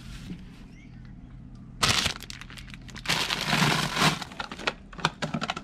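Thin plastic produce bags crinkling and rustling as fruit is handled and packed into a portable fridge's wire basket. There is a sharp crackle about two seconds in, a longer stretch of crinkling around three to four seconds, and a few short clicks near the end.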